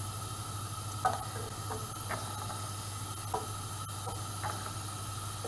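Carrot slices sizzling in hot sunflower oil in a frying pan as they are dropped in one by one, with a short light sound about every second as each slice goes in. A steady low hum runs underneath.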